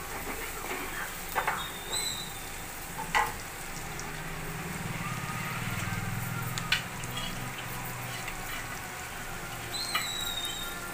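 Onions, coriander, mint, ginger-garlic paste and turmeric sizzling in hot oil in a pan, with a few sharp knocks of the stirring spoon against the pan.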